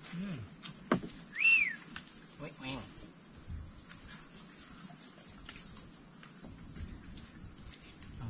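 Steady high-pitched insect chorus, pulsing evenly several times a second. About a second and a half in, a single short whistled note rises and falls.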